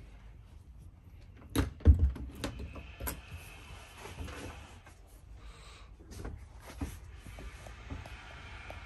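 A few knocks and clunks in the small interior of a travel trailer, the loudest pair about two seconds in and lighter ones later, over a faint steady hiss.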